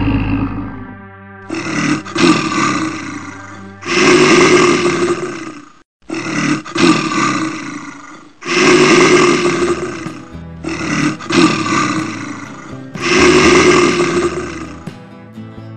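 Bear roaring over and over, about six gruff roars one every two seconds or so, with background music underneath.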